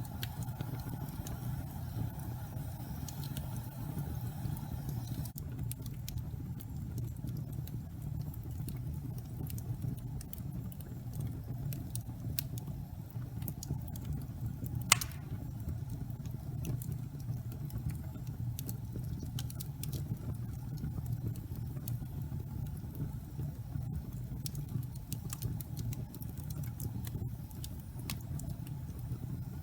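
Wood fire burning in a fireplace: a steady low rumble of flames with scattered crackles and snaps, and one louder pop about halfway through.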